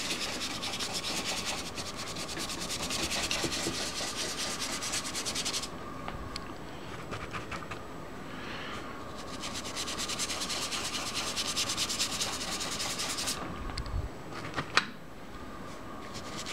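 Stiff flat paintbrush scrubbing dry pigment onto a painted surface in quick, rapid strokes, in two spells with a quieter pause between them. A sharp click comes near the end.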